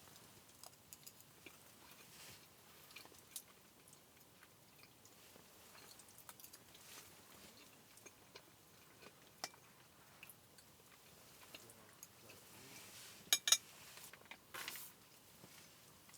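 Faint sounds of a person eating: quiet chewing with scattered light clinks of cutlery on a dish, and two sharper clinks about 13 seconds in.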